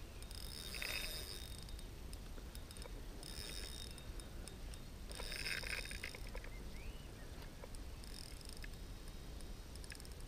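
Spinning reel's drag buzzing in four short bursts of about a second each as a hooked carp pulls line off against it.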